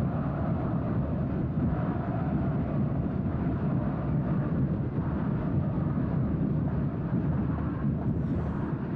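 Large football stadium crowd, a steady, dense roar of many voices.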